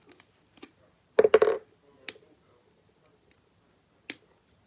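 Small hard objects being handled: a quick cluster of sharp clicks and knocks about a second in, then two single clicks.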